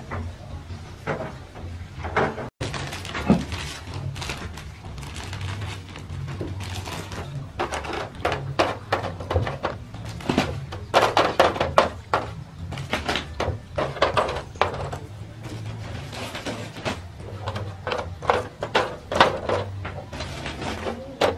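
Sheet-metal baking trays knocking and scraping as they are slid off and onto a stack, a busy run of irregular rattling knocks with a little metallic ring, over a low steady hum.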